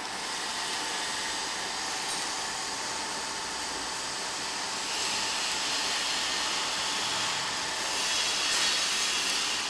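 Inverter-driven plastic-film rewinding machine running, film hissing over its rollers with steady machine noise, a little louder in the second half. It is running basically without the speed jitter the inverter's filter setting is meant to remove.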